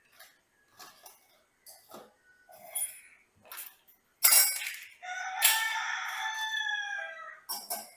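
A rooster crowing once, a call of about two seconds that drops in pitch at the end. Just before it comes a loud clatter, and light clinks and clicks are heard throughout.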